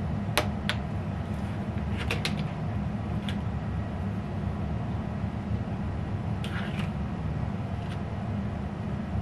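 Steady low background hum, with a few light clicks and taps as a clear plastic quilting ruler and a marking pen are handled on a cutting mat to mark a seam line.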